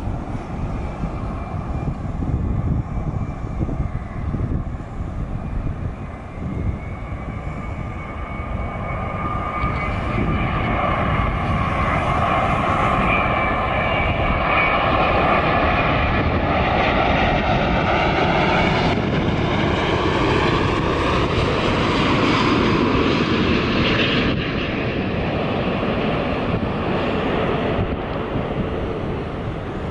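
Boeing 787-9's Rolls-Royce Trent 1000 jet engines on landing approach passing low overhead: a whine with several tones that builds in loudness, drops in pitch as the aircraft passes about two-thirds of the way through, then eases off, over wind rumble on the microphone.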